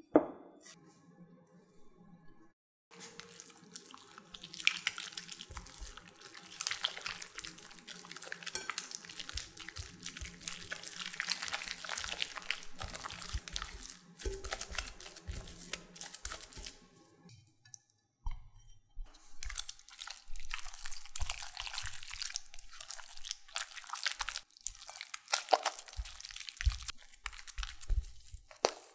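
A silicone spatula beating egg into cooked choux paste in a glass bowl: wet, sticky squishing and scraping against the glass, with a brief pause about two-thirds of the way through. A single sharp knock comes right at the start.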